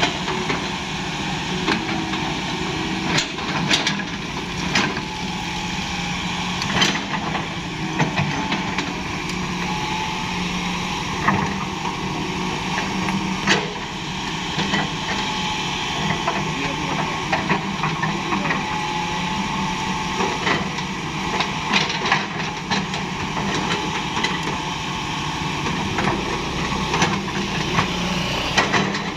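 Hitachi crawler excavator's diesel engine running steadily as the machine works its boom and bucket, with frequent sharp knocks and clanks from the bucket and arm.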